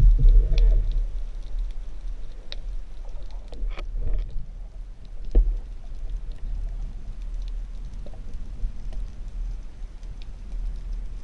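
Underwater sound picked up through a diving camera's housing: a steady low rumble of moving water, louder in the first second, with scattered sharp clicks and crackles throughout.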